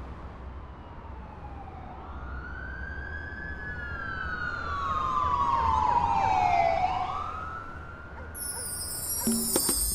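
A siren wailing, its pitch sliding slowly down and then rising again, growing louder toward the middle and fading after, over a low steady rumble.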